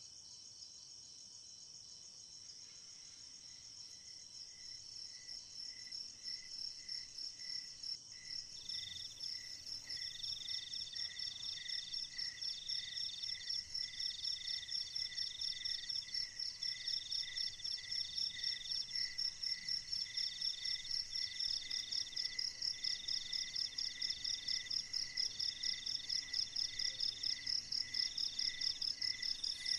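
Insects, crickets among them, calling at dusk: a high, rapidly pulsing trill, joined a few seconds in by a slower, regular lower chirp at about one and a half a second, and from about nine seconds in by repeated buzzing bursts about a second long. The chorus grows steadily louder.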